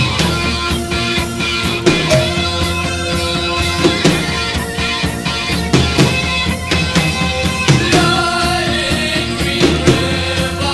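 Post-punk rock song playing: a drum kit keeping a steady beat under bass and long held chords.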